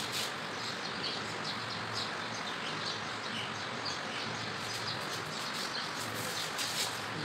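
Steady background hiss with faint, scattered high chirps of small birds.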